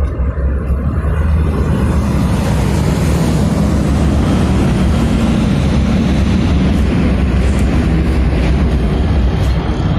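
Road traffic passing on the street: a loud, steady noise of engines and tyres that builds up over the first second or two and holds.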